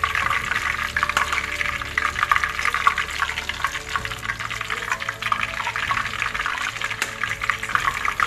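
Curry leaves frying in hot oil in a cast-iron kadai, a steady sizzle full of fine crackles.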